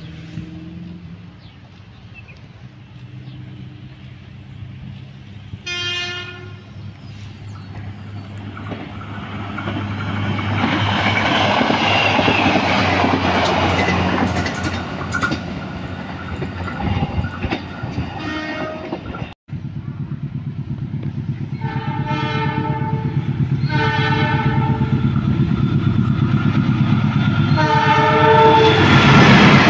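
A short horn blast, then a train running past with a rising roar of wheels on rail. After a break, a diesel locomotive hauling passenger coaches approaches, sounding its horn three times in blasts of about a second each, while the wheels' rhythmic clatter grows louder.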